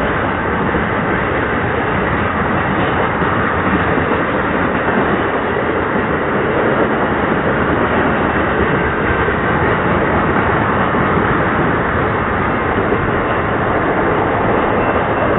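Freight train cars (tank cars and covered hoppers) rolling past close by: a steady, loud noise of wheels on rail.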